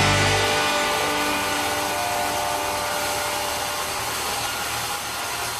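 Sawmill saw running steadily, a continuous machine noise, while the last held notes of a music track fade out over the first few seconds.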